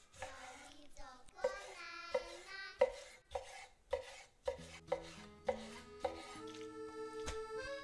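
Knife slicing pork tenderloin on a wooden cutting board, the blade knocking on the board about every half second, over background music that carries a voice at first and turns instrumental about halfway through.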